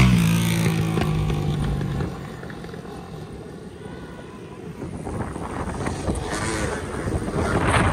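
A motor vehicle's engine passing close by, its pitch falling as it goes and its sound fading out about two seconds in. After that comes a steady rush of wind and road noise from riding, growing louder again near the end.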